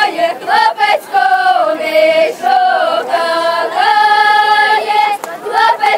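Group of girls and women singing a Ukrainian folk song together without accompaniment, one melody line with long held notes and short breaks for breath.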